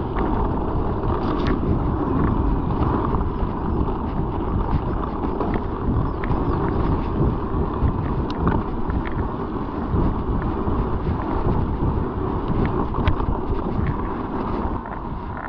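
Wind buffeting a chest-mounted GoPro in its plastic case, over the rumble of a mountain bike rolling along a rough trail, with scattered sharp clicks and rattles.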